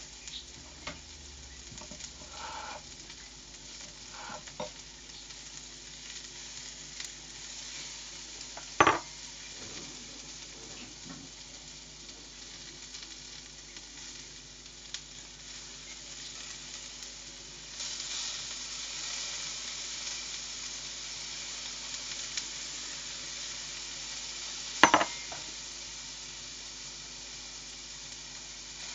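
Food sizzling in a frying pan, a steady hiss that grows louder about two-thirds of the way through. Two sharp knocks stand out, one about a third of the way in and one near the end.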